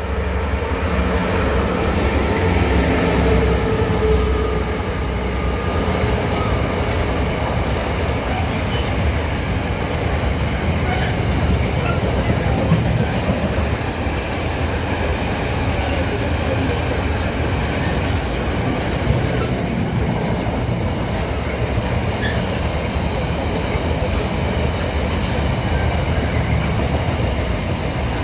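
A train running along the track with a steady rumble of wheels on rail. Partway through, high-pitched wheel squeal comes in bursts for several seconds.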